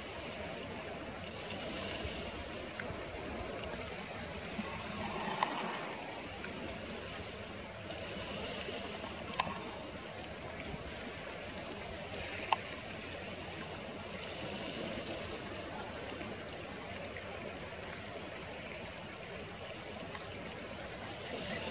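Sea water washing against a rocky shoreline, a steady rushing noise, with three short sharp clicks along the way.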